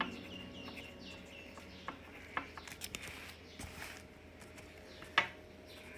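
Faint high chirps and scattered light clicks, with one sharper click about five seconds in.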